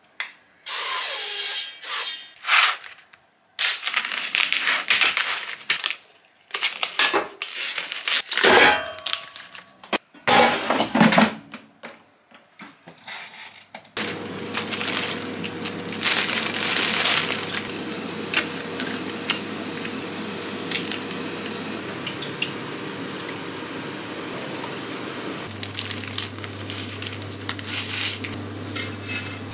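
Kitchen food prep: cooking-oil spray hissing in short bursts into an air fryer basket, then clattering and rustling as salad is handled. About halfway through, a steady kitchen appliance hum starts and runs on.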